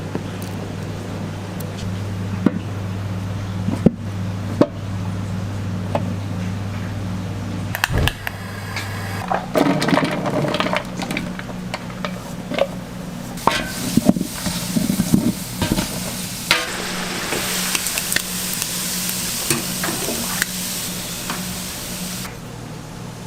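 Food frying on a hot pan for omelette rice, sizzling, while metal utensils clink and scrape against it; the sizzle swells loudest near the end. A steady low hum runs underneath and stops about nine seconds in.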